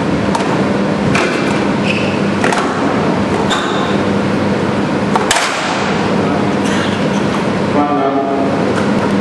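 Squash rally: sharp smacks of racket on ball and ball off the court walls, about one every second or two, with short squeaks of shoes on the court floor, over a steady background hum.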